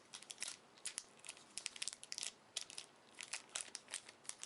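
A trading-card booster pack wrapper being worked open by hand, crinkling in a run of short, irregular crackles.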